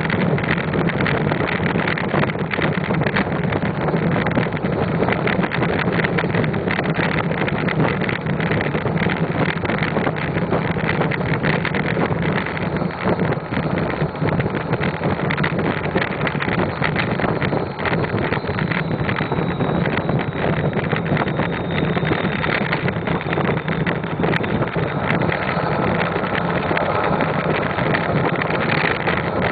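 Modified 6.0L Power Stroke V8 turbo-diesel running steadily under way, heard through its exhaust stack close to the microphone, with wind buffeting the microphone.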